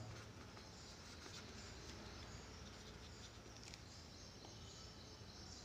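Near silence: faint room tone with a low steady hum and a few faint scratches of a pencil writing on paper.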